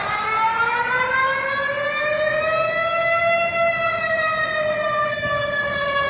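Warning siren of Malaysia's emergency alert: one long wail over a hiss, rising slowly in pitch and then sinking gently.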